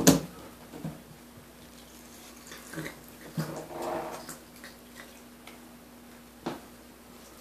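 A Bengal kitten worrying a raw turkey neck in a bathtub: a sharp knock as the bone hits the tub, then a few lighter knocks. About halfway through comes a short growl over the food.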